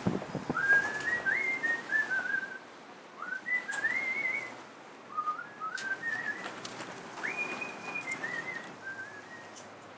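A person whistling a tune, four short phrases of stepping and sliding notes, with a few sharp clicks in between.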